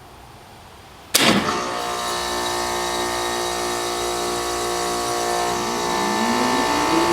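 Trane XL16 heat pump kicking on abruptly about a second in and settling into a steady hum, with a slowly rising whine starting near the end. It is starting up again as it short-cycles in heat mode.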